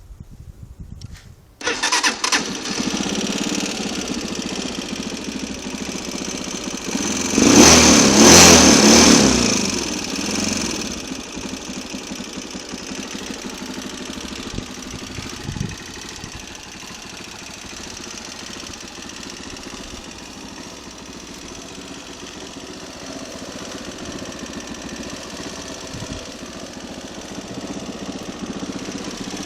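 Small 125 cc engine starting just under two seconds in and running. It is revved briefly for a few seconds about a quarter of the way through, then settles to a steady idle.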